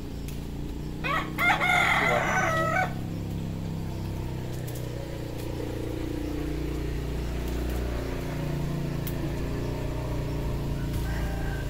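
A rooster crows once, about a second in, for about two seconds, over a steady low hum.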